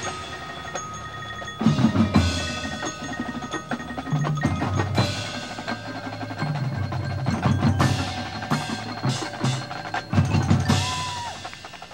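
Marching band percussion section playing: ringing chimes and mallet instruments such as glockenspiel and marimba over repeated drum hits, dying down near the end.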